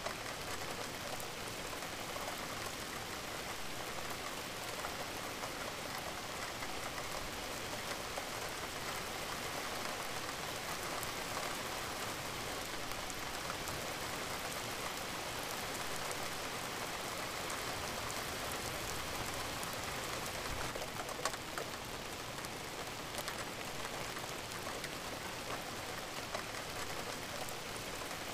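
Recorded steady rain added as background, an even hiss of rainfall with fine, scattered drop patter; one louder single click comes about three-quarters of the way through.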